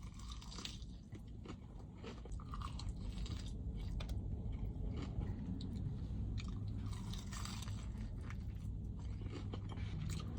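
A person chewing and biting into a crispy fried chicken wing close to the microphone, with irregular crunches over a steady low hum.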